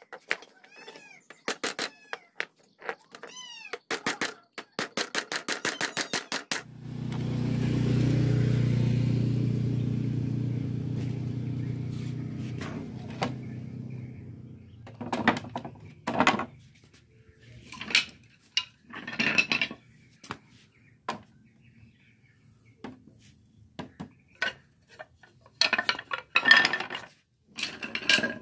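Claw hammer striking the joints of a wooden frame, a string of sharp ringing blows that quickens to about four a second. Then a steady low motor hum holds for several seconds and slowly fades. After it come scattered knocks of timber pieces being set down on concrete.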